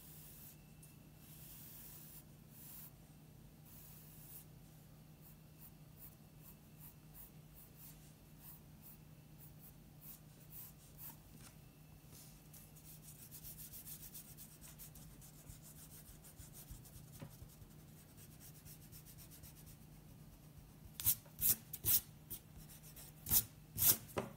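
An eraser rubbing on drawing paper to remove pencil construction lines, with light pencil strokes: faint, scratchy back-and-forth rubbing, busiest about halfway through. Near the end come several much louder, quick strokes across the paper.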